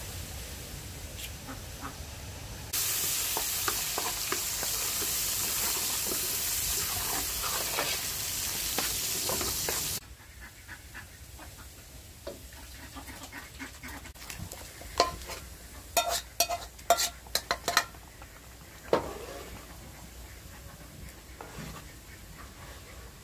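Egg sizzling loudly in hot oil in a stainless steel pan, starting suddenly about three seconds in and cutting off at about ten seconds. Later a metal spoon clinks against the pan several times as the herb stew is stirred.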